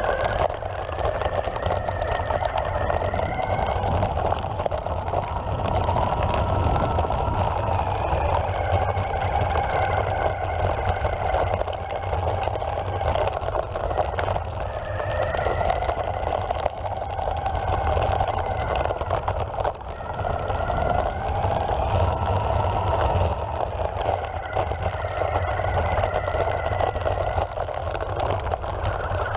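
Evolve Carbon GT electric skateboard riding over grass: its belt-driven motors whine, the pitch rising and falling with speed, over a steady low rumble.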